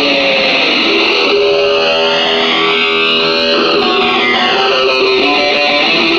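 Electric guitar playing a solo with held, sustained notes, its tone swept slowly up and down by an effect about every two seconds.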